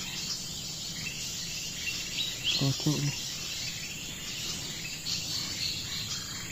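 Forest ambience: a steady high insect drone with scattered short chirps from small songbirds, and a brief low murmur about two and a half seconds in.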